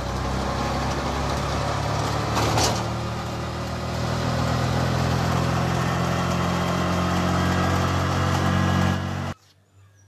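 An engine idling steadily, a low even hum under a wash of noise, with a brief rustle about two and a half seconds in; it stops abruptly about nine seconds in.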